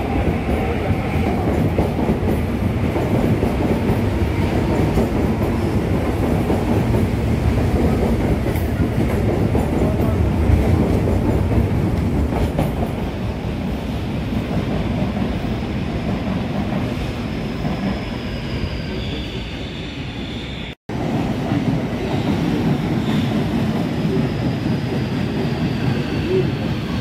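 CPTM electric commuter trains running past the platform: a steady rumble of wheels on rails with clickety-clack over the joints. In the last third, faint high wheel squeals slide downward in pitch. The sound cuts out for an instant about two-thirds of the way through.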